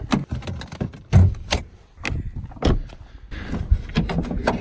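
A string of knocks and clicks as a 2004 Mercedes-Benz E320's door and hood release are worked to pop the hood, the loudest a thump about a second in.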